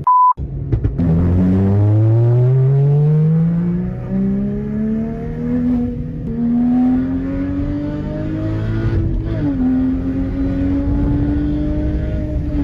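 A car engine accelerating under load, its pitch climbing steadily for about eight seconds, then dropping at a gear change and running at a steady pitch. A short beep sounds at the very start.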